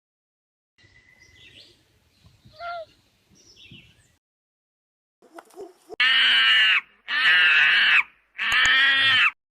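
An animal calling: faint chirps at first, then three loud drawn-out calls in a row, each just under a second, rising and falling in pitch.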